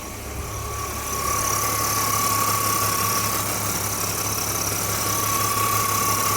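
BMW E46 330i's 3.0-litre straight-six running at a steady idle, with a steady high whine over it that grows louder about a second in.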